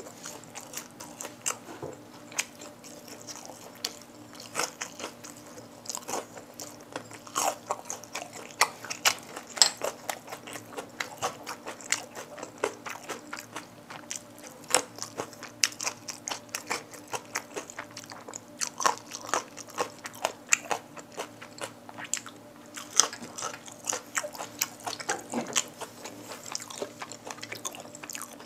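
Close-up mouth sounds of eating spicy Korean fried chicken: biting and crunching through the coating and chewing, in quick irregular crunches all through.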